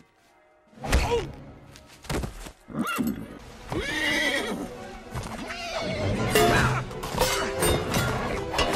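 Animated horse neighing and whinnying in short, arching calls, starting about a second in, over film-score music with hoofbeats. Later come sharp metal clangs of a sword striking a frying pan.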